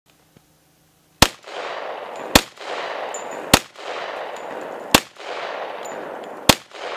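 Five shots from a Glock 40 10mm pistol with a 6-inch barrel, fired one at a time about a second to a second and a half apart, each followed by a long echo that rolls off.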